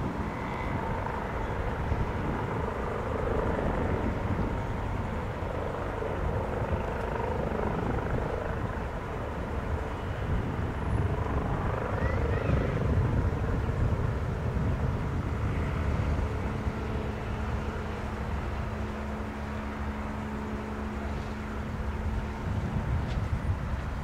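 MBB-Kawasaki BK117-A3 twin-engine helicopter hovering low over the ground, its rotor and turbines making a steady, even noise heard across the airfield.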